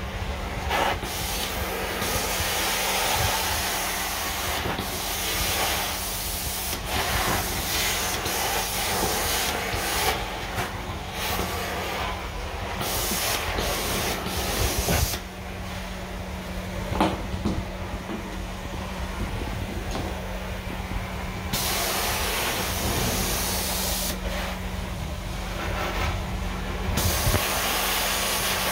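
Carpet-extraction wand hissing as it is pulled across wet carpet, with a steady low hum of the machine underneath. The high hiss drops out twice in the second half, for several seconds each time, then returns.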